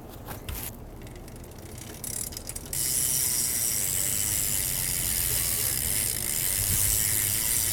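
Stock Stolen rear hub of a BMX bike freewheeling as the rear wheel is spun: the pawls ratchet so fast that the clicks run together. A few scattered clicks come first, then about three seconds in a steady, fast ratcheting sets in and carries on.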